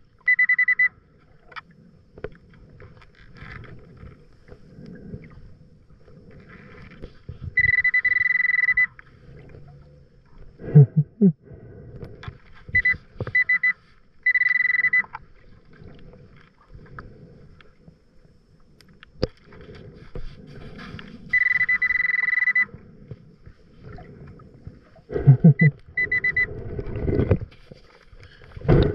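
Underwater metal detector (Nokta Pulse Dive pinpointer with its loop coil) giving its steady high alert tone several times, some about a second long and some as short chirps: it is signalling metal buried in the sand. Two louder low underwater rumbling bursts come about eleven seconds in and again near the end.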